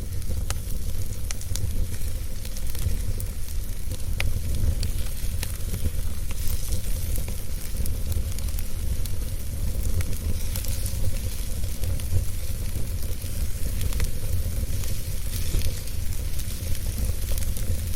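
Wood fire in a fireplace crackling, with scattered sharp pops and a sizzling hiss, over a steady low rumble.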